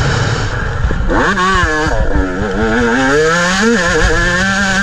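Gas Gas MC 125 two-stroke motocross bike being ridden hard. Its engine note rises about a second in, dips, climbs again through the revs, then holds steady near the end, over the rush of wind on the onboard microphone.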